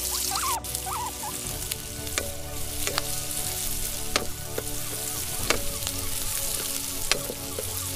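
Hot oil sizzling in a metal wok as ingredients fry, with a wooden spatula stirring and knocking sharply against the pan half a dozen times.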